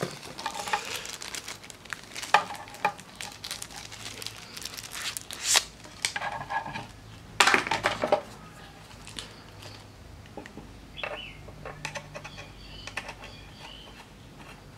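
Handling noise: a rubber Wi-Fi antenna and an aluminium TV-box case knocked and set down on a wooden table, with some rustling of plastic wrapping. The sharpest knocks come about five and a half and seven and a half seconds in. Fainter small ticks follow near the end as the antenna is screwed onto its connector.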